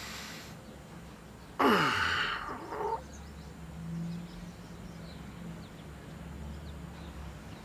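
A man's long, breathy groaning sigh as he is woken, falling in pitch, starting about a second and a half in and lasting just over a second; otherwise a quiet room.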